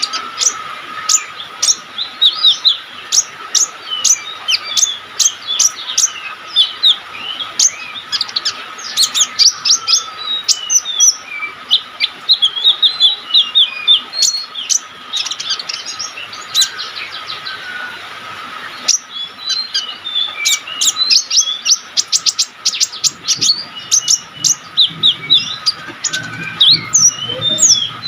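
Brown-throated sunbird (kolibri ninja) singing busily: a continuous run of quick, high chirps and short rapid trills.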